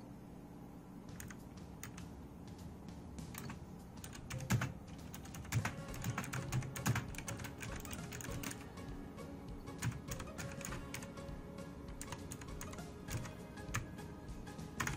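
Clicky optical-mechanical blue switches of an HP OMEN Sequencer gaming keyboard, keys pressed in an irregular run of sharp clicks starting about a second in.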